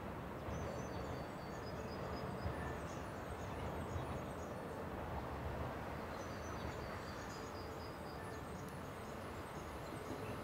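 Steady low background rumble of outdoor city ambience, with small birds chirping in short, high repeated notes.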